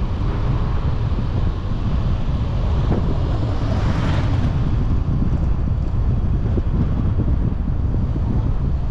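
Car on the move: steady low rumble of road and engine noise with wind buffeting the microphone. A brief hiss swells and fades about four seconds in.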